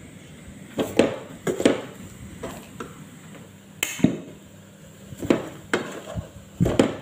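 Wooden spatula stirring thick mashed-potato filling in a pot, knocking against the pot in about ten irregular knocks.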